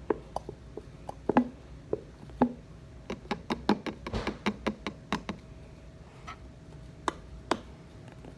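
Irregular sharp knocks and taps from a glue bottle being worked to get the last of the glue out, about twenty strikes in all, bunched closely together in the middle and more spaced out near the start and end.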